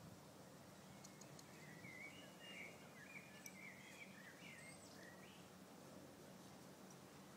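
Faint background hush with a short burst of bird song: a run of quick warbling chirps lasting about three seconds, starting about two seconds in.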